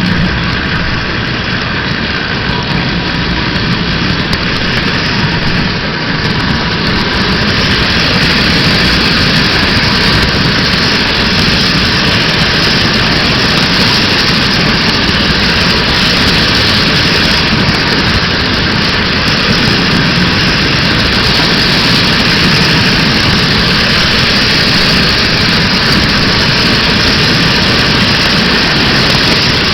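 Model train running on its track, heard from a camera riding on one of its cars: a steady rolling rumble of wheels and motor that grows a little louder about seven seconds in.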